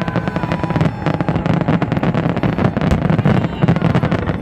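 Fireworks going off continuously: a dense run of bangs and crackles over a steady low rumble, with a thin whistle fading out about a second in.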